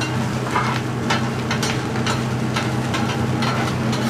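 Metal spatula scraping and tapping on a flat-top griddle, about twice a second, as fried rice is stir-fried and sizzles, under a steady low hum.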